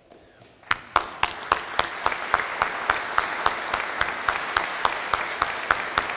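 Applause from a crowd, starting about a second in, with one pair of hands clapping loud and close at a steady three to four claps a second.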